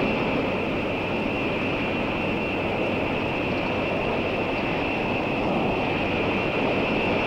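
Jet engines of a B-52 carrier aircraft running on the ground: a loud, steady rushing noise with a high whine held over it.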